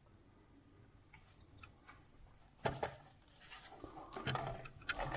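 Faint handling noise: a few light clicks about two and a half seconds in, followed by scattered soft rubbing and tapping sounds.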